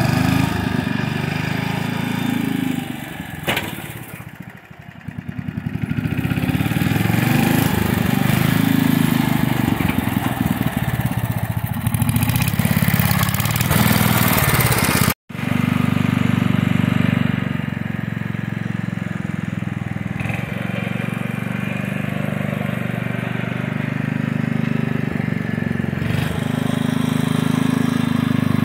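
Small engine of a vintage Springfield garden tractor running as the tractor is driven. About four seconds in the engine note falls away, then picks back up. Halfway through, the sound cuts out for an instant.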